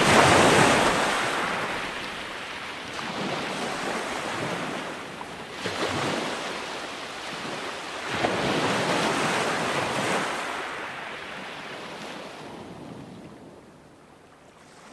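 Ocean surf washing in, swelling and falling away about four times, then fading out near the end.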